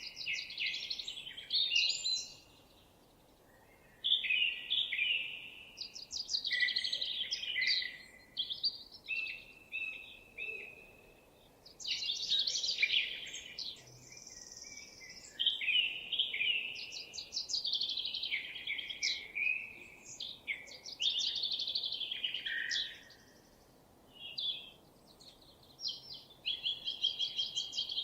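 Songbirds singing: a steady run of varied, high warbled and trilled phrases, each a second or two long, with short pauses between them.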